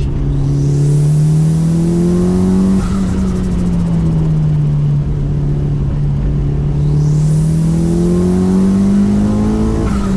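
Mitsubishi Lancer Evolution VI's turbocharged four-cylinder engine pulling hard, rising in pitch, then lifting off about three seconds in with a brief turbo flutter. It eases down, then pulls up again and lifts off near the end.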